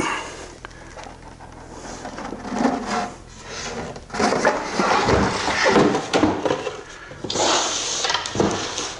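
A tight-fitting laminate liner panel scraping and rubbing against the wooden sides of a toolbox as it is worked loose and slid out, with a louder, brighter scrape near the end.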